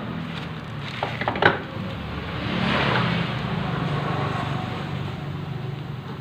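Motorcycle engine running steadily, with a few sharp clicks about a second and a half in and a brief rise near the middle.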